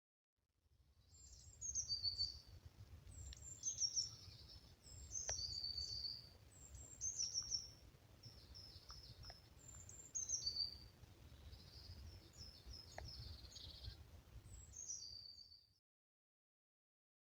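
A songbird singing a run of short, high phrases of quick falling notes, one after another, over a low steady background rumble. The sound cuts off shortly before the end.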